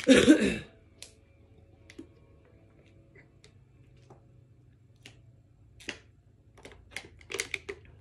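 A brief voice sound at the very start, then sparse light clicks and taps, a handful spread out, with a small cluster of them near the end.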